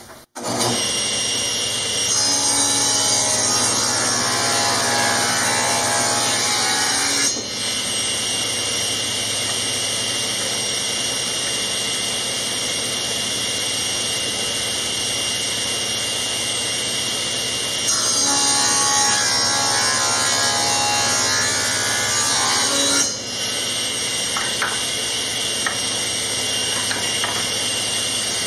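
Grizzly G1023SL 10-inch cabinet table saw coming on just after the start and running steadily. It rips through a thick hard maple board twice, for about five seconds each time, around two seconds and eighteen seconds in, and the blade's sound grows louder and brighter during each cut.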